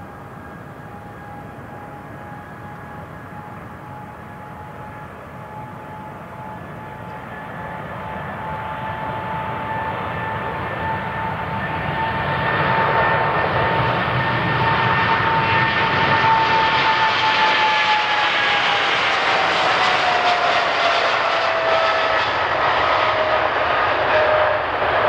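Boeing 777-300ER's GE90 turbofans at takeoff power, swelling louder over the first half, then a steady engine whine that slides down in pitch near the end as the airliner passes.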